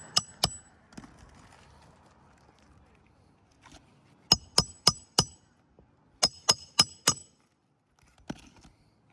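Hammer driving roofing nails into asphalt shingles: sharp ringing metal strikes. There are two near the start, then two quick runs of four strikes a few seconds apart, and a single strike near the end.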